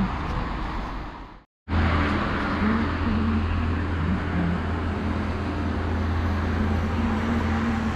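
Steady street traffic noise, a continuous low rumble of passing road vehicles. It cuts out completely for a moment about a second and a half in, then resumes.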